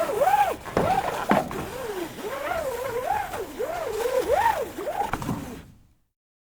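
Fire truck siren warbling, its pitch swooping quickly up and down two or three times a second, over some background noise with a sharp click about a second in. It fades and cuts off near the end.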